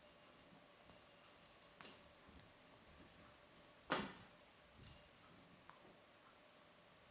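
Small bell on a ribboned wand cat toy jingling in quick shakes as the toy is waved and batted at, with a sharp knock about four seconds in and another brief jingle just after; the toy falls still in the last couple of seconds.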